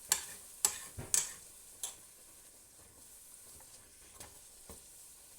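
Pasta sizzling faintly in a frying pan, with five or so sharp clicks and taps in the first two seconds, then only the faint sizzle.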